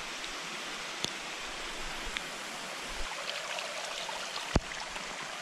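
Rainwater running steadily along a small drainage channel in heavy rain. Two sharp taps break in, a faint one about a second in and a louder one near the end.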